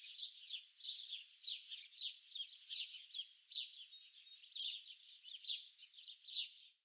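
Many small songbirds chirping and twittering, a dense run of quick, high, downward-sweeping chirps overlapping one another. The sound drops out briefly at the very end.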